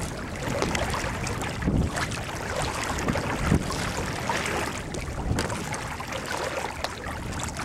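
Wind buffeting the microphone over choppy water lapping against a kayak's hull, with a couple of stronger gusts along the way.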